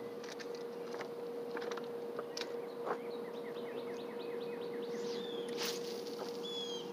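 A songbird singing a rapid run of short repeated notes, starting about three seconds in and ending with a brief clear whistle, over a steady low hum, with a few faint clicks in the first half.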